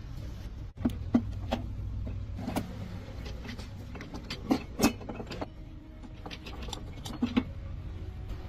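Metal tools and gearbox parts clinking and knocking, a scattering of short sharp knocks, loudest a second in and near the middle, over a steady low hum.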